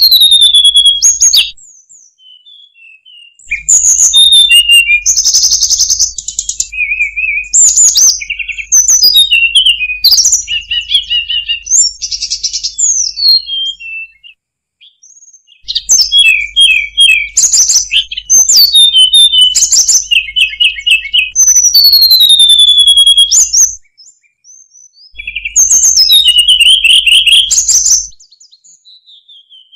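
Hill blue flycatcher singing: phrases of rapid, varied high chirps, trills and gliding whistles, broken by short pauses of a second or two.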